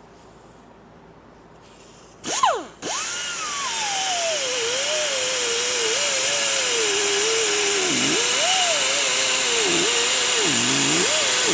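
Handheld power grinder starting a couple of seconds in and then running against a tire's rubber sidewall, grinding off the molded brand lettering. Its whine wavers and sags in pitch as it is pressed into the rubber, dipping sharply twice near the end.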